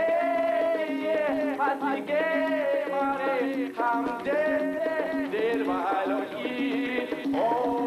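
Theatre musical number with an Indian flavour: singing in long, wavering held notes over a steady pulsing beat.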